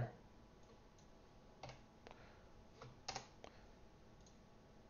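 Near silence with a few faint, short computer clicks. The clearest come about one and a half seconds in and about three seconds in.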